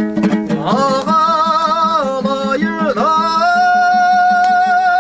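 A Kazakh folk song sung to a dombra: quick plucked strokes over a steady drone, and a voice holding notes with vibrato, gliding up into a long held final note about three and a half seconds in.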